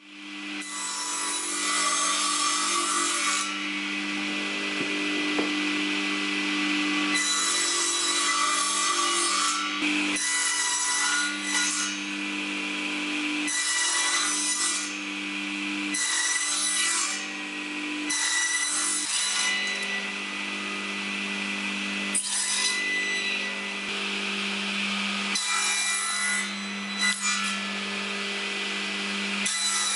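Table saw starting up and running, its motor holding a steady hum while the blade makes about ten separate cuts through pine beams pushed across on a crosscut sled, each cut a loud rasping burst lasting a second or two. These repeated passes are cutting tenons in the beam ends.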